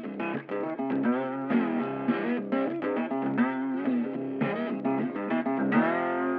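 Background music: a guitar playing a melody of quick notes with bent, sliding pitches, settling into one long held chord near the end.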